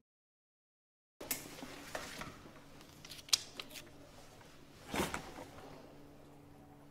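About a second of dead silence, then paper being handled at a desk: light rustling and a few small clicks, with a louder rustle about five seconds in, over a steady low hum.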